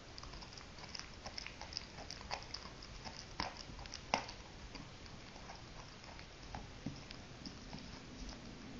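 A dog gnawing on a chew held between her paws: irregular crunching clicks, with two louder cracks about three and a half and four seconds in.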